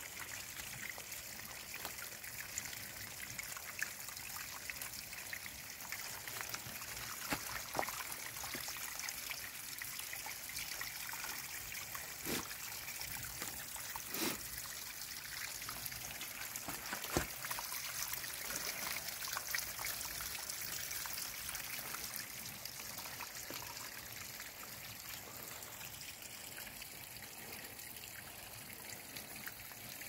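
A small mountain stream trickling and splashing down between rocks, a steady hiss of running water, with a few brief sharp clicks scattered through it.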